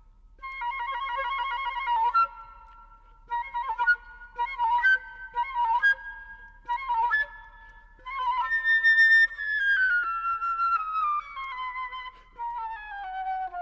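Background music: a high solo melody, opening with quick trills, moving through short notes that step upward, then a long run of notes descending in pitch near the end.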